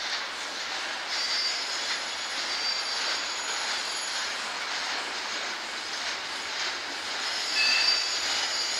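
Flatcars of a freight train rolling past: a steady rumble and hiss of steel wheels on rail, with brief high-pitched wheel squeals now and then.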